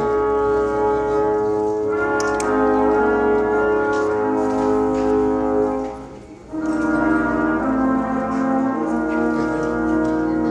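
Brass instrumental music playing slow, sustained chords. It briefly drops away about six seconds in, then resumes.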